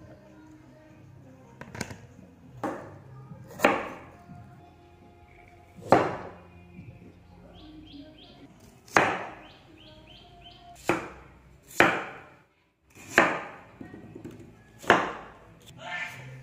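A cleaver chopping fresh bamboo shoots on a wooden chopping board: about ten sharp, separate chops at an uneven pace, one every one to two seconds.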